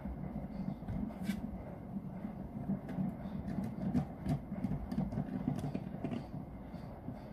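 A Beyblade Burst spinning top whirring steadily as its tip spins against a tabletop, with scattered light clicks. It grows quieter near the end as the top drifts and wobbles while slowing down.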